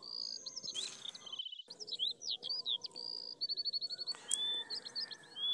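Small birds chirping and singing: quick high whistled notes and sweeps, with a rapid buzzy trill about three and a half seconds in. The sound cuts out completely for a moment about one and a half seconds in.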